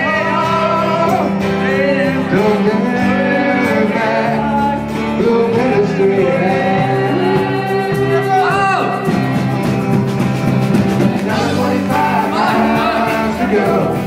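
Live band playing amplified music, with guitars and a voice singing over them.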